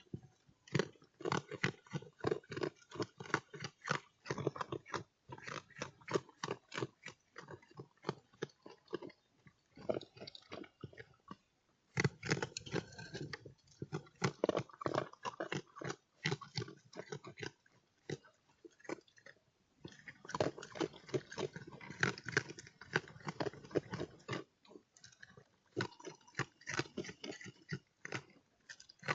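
An animal chewing and crunching food close to the microphone, in bouts of rapid crunches separated by short pauses.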